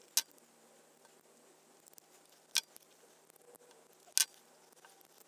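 Light, sharp clicks of a hex key working small socket head screws into a servo's mounting brackets: three separate clicks a second or two apart, the last one doubled.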